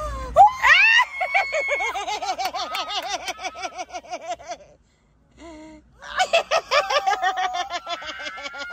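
A young woman shrieking and laughing in excited delight: a rising squeal, then quick bursts of laughter. The laughter breaks off for about a second near the middle, then starts up again.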